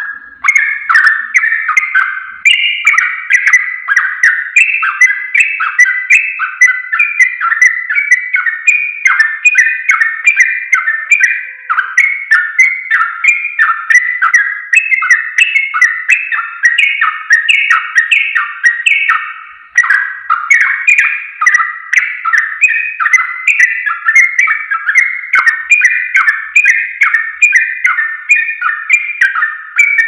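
Yellow-vented bulbul singing a fast, unbroken run of short chattering notes, several a second, in the continuous 'ropel' style. The song starts abruptly right at the beginning and goes on without a pause.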